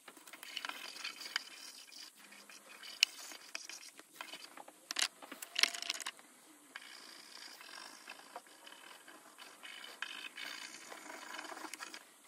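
Pastel sticks scribbling and scratching across paper in quick strokes, with a few sharp taps in between.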